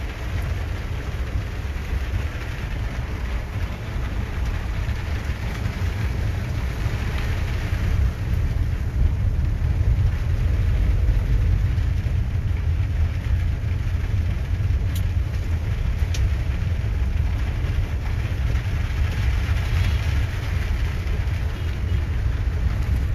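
Car driving on a wet road in the rain, heard from inside the cabin: a steady low road-and-engine rumble with a hiss of rain and spray over it.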